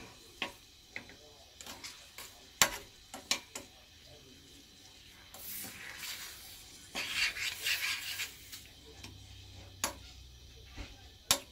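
Metal spoon stirring strawberries in a small stainless steel saucepan, clinking and scraping against the pan in a dozen or so sharp, irregular clicks. A few seconds of hissing come in past the middle.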